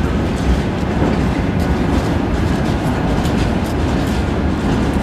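Freight wagons rolling past on the tracks: a steady heavy rumble with irregular wheel clicks and clatter over the rail joints.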